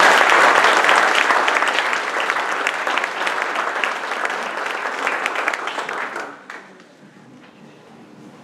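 Audience applauding, a dense clatter of many hands clapping that thins out and dies away about six seconds in.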